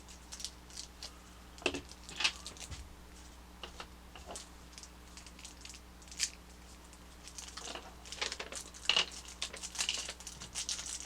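Plastic packaging crinkling and rustling as small toy parts are handled, in scattered short bursts with a busier stretch about eight seconds in.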